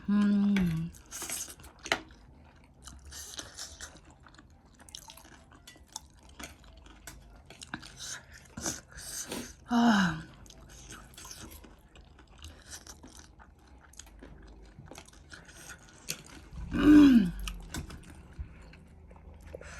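A person chewing and crunching spicy noodles and chatpate, with many small crunchy clicks throughout. There are a few short vocal sounds: one at the start, one about ten seconds in, and one near the end.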